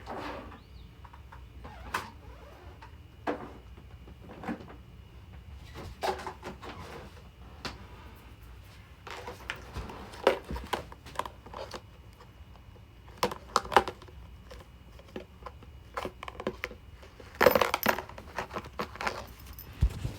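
Objects being handled and set down: scattered knocks, clinks and rustles at irregular intervals, with a denser, louder burst of clatter about three-quarters of the way through.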